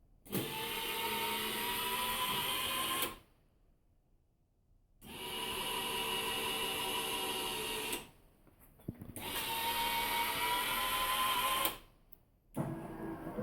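Small 12-volt electric chute motors on a snowblower, switched on three times for about three seconds each with short pauses between. Each run is a steady motor whine, which climbs slightly in pitch during the first and last runs.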